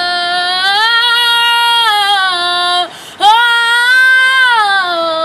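A girl singing unaccompanied, holding long wordless vowel notes. Two long phrases, each dipping in pitch and rising again, with a short breath between them about three seconds in.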